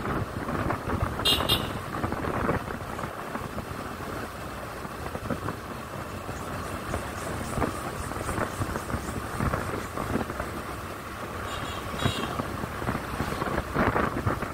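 Motorcycle riding along a road, heard from the rider's seat: a steady mix of engine and wind noise on the microphone. A short high-pitched pulsing ring comes about a second in, and a fainter one near the end.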